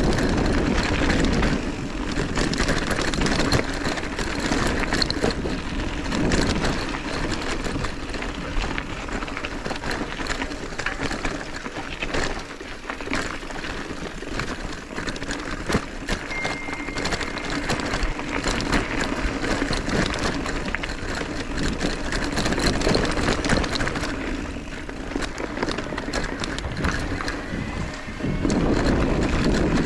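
Mountain bike ridden over a gravel forest track: tyres crunching and the bike rattling over stones in a dense run of clicks. Wind rushes on the microphone, heaviest near the start and again near the end.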